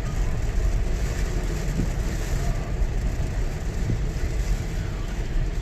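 Steady road noise of a car driving in the rain, heard from inside: a constant low rumble with a hiss of wet tyres and rain.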